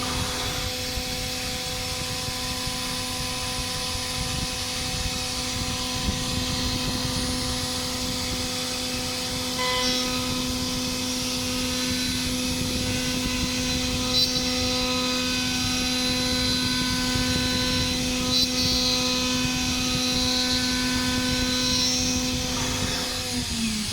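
CNC router spindle running at a steady high whine with a noisy cutting bed, with a few short sharp ticks along the way. Near the end the whine drops in pitch as the spindle winds down.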